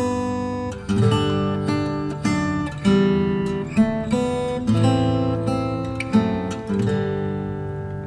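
Background music: acoustic guitar strumming chords, each strum ringing out and fading before the next.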